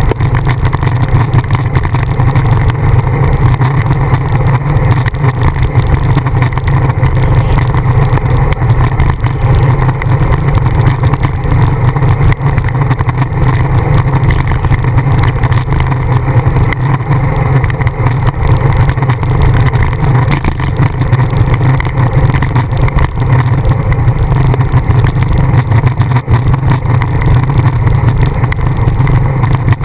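Loud, steady low rumble of wind buffeting the microphone of an action camera mounted on a road bike riding at speed.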